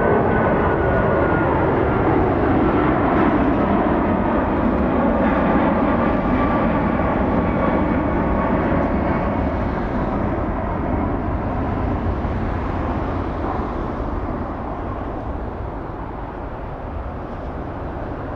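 Four Rolls-Royce Trent 500 engines of an Airbus A340-500 at departure power, a loud jet roar with whining tones that slowly fall in pitch as the aircraft passes and climbs away. The sound gradually fades over the last several seconds.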